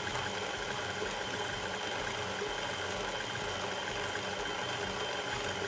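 KitchenAid Ultra Power tilt-head stand mixer running steadily at a constant speed, its motor humming as the beater mixes thick cookie dough in the steel bowl.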